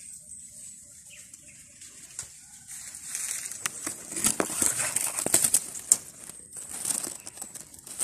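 Dry bamboo leaves and stems rustling and twigs crackling as someone pushes through a dense thicket. It builds a few seconds in and is loudest and most crackly in the middle, with many sharp snaps.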